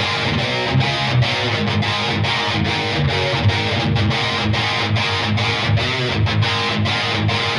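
Lavish Hollovish semi-hollow electric guitar played with a distorted, overdriven tone: a picked riff of notes and chords, broken by short, regular gaps several times a second.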